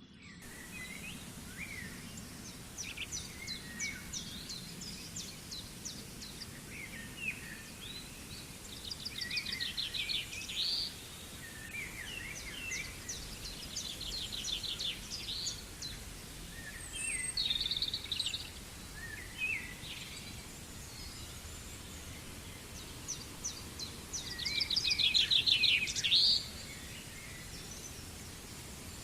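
Birds singing in short phrases of fast trills and chirps, repeated every few seconds, loudest near the end, over a steady rushing noise from the waterfall.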